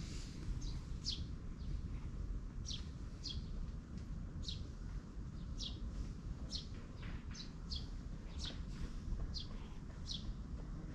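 A bird chirping: short, high notes that drop in pitch, about one a second at uneven spacing, over a steady low rumble.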